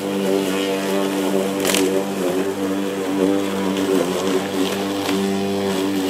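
Petrol rotary lawnmower engine running steadily, with a brief hiss a little under two seconds in.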